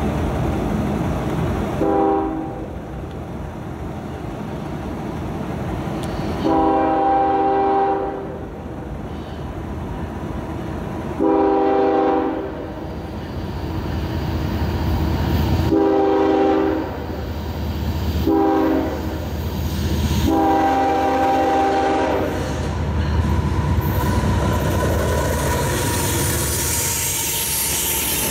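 Diesel freight locomotive's air horn sounding as the train approaches: a short blast, three long ones, a short one and a final long one. The last four form the long-long-short-long grade-crossing signal. The engine and the wheels on the rails then grow louder as the locomotive comes by, with clickety-clack near the end.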